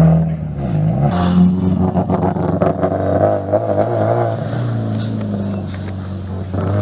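Rally car's engine revving as the car pulls away and accelerates up the road, its note rising and falling with the throttle and growing fainter near the end as it drives off.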